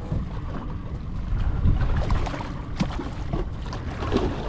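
Wind rumbling on the microphone aboard a small aluminum fishing boat, with water against the hull and a few short knocks.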